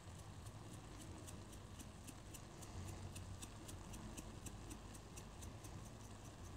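Spice jar of caraway seeds shaken over the pot: a faint, quick, even rattle of about four or five shakes a second. The jar is clogged, so hardly any seeds come out.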